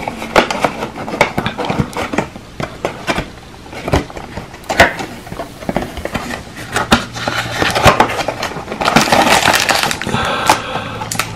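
Hands opening a trading-card box: a cardboard flap and foil-wrapped card packs rustling and crinkling, in a run of sharp crackles and taps that gets busiest near the end.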